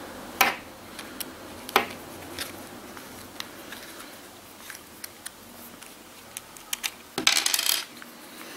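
Sharp clicks and taps of a plastic foregrip and an Allen key being handled while the grip's screws are worked on. The two loudest clicks come in the first two seconds, with a brief scraping rustle about seven seconds in.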